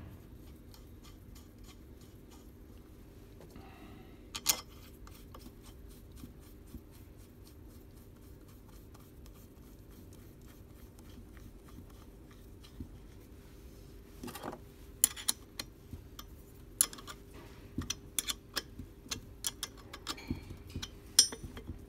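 Metal-on-metal clicks and taps from fitting a titanium connecting rod's cap and bolts onto an engine crankshaft, over a faint steady hum. There is one sharp click about a quarter of the way in, then from about two-thirds through a quick run of clicks and taps as the bolts are worked with a wrench.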